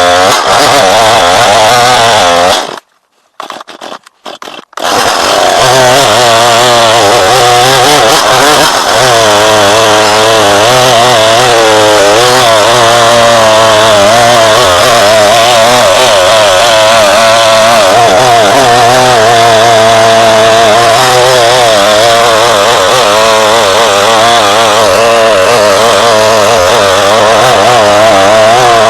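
Gas chainsaw running under load as it cuts into a large cedar trunk, its engine pitch wavering as the chain bites. The sound cuts out for about two seconds shortly after the start, then carries on.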